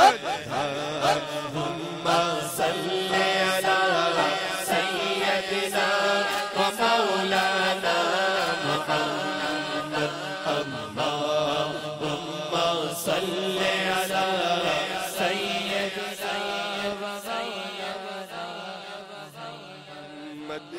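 A man's voice chanting a durood recitation through a microphone and PA, in long held melodic lines. A steady low drone sits under the voice, and sharp taps come roughly once a second.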